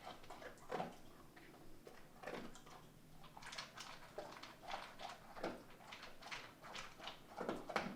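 A string of soft, irregular taps and clicks, one every half second to a second, in a small quiet room.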